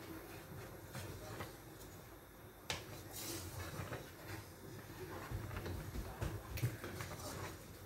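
Wooden spoon stirring thick starch-thickened soup in a steel pot, scraping against the pot, with a few sharp knocks on the pot; the loudest come about three seconds in and again near the end.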